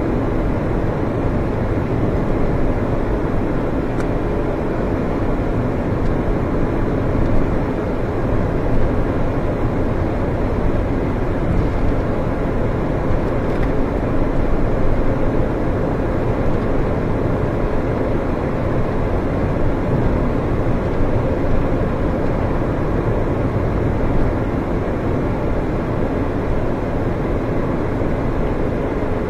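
Alfa Romeo 156 driving at a steady pace, its engine and road noise heard from inside the cabin as a steady, even rumble.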